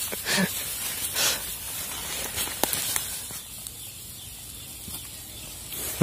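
A charcoal and wood fire hissing under skewered green pigeons grilling on the embers, with a few sharp crackles.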